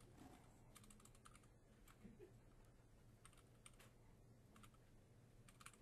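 Faint computer keyboard typing: a few short runs of light key clicks over quiet room tone.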